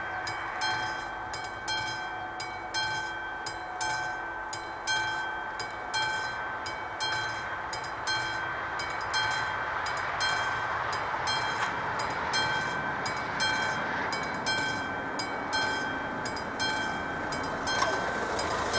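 Classic mechanical level-crossing bell ringing in a steady rhythm of about two strokes a second: the crossing's warning of an approaching train. A rush of noise builds under it from about halfway through.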